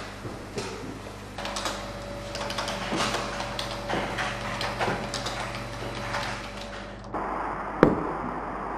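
Office room hum with a computer keyboard being typed on: irregular light clicks over a faint steady tone. Near the end comes a single sharp footstep of a leather shoe on a tiled floor.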